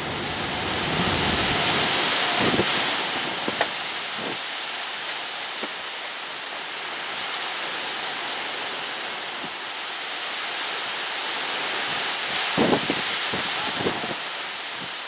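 Wind rushing steadily, swelling and easing in gusts, with a few soft thumps in the stronger gusts.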